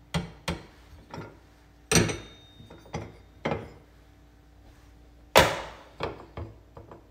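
Gas-stove burner cap and cast metal burner head being lifted off and set down: a series of sharp clinks and knocks, the loudest about five and a half seconds in, one with a brief metallic ring about two seconds in.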